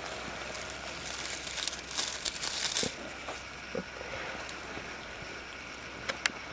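Dry leaf litter rustling and crackling as a birch bolete is picked by hand from the forest floor. The rustling is strongest about two to three seconds in, then gives way to a few faint clicks.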